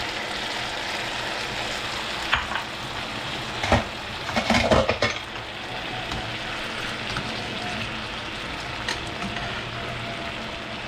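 Salmon fillets frying in hot oil and butter in a pot, a steady sizzle, with a few knocks of a utensil against the pot and a short burst of clattering about four to five seconds in.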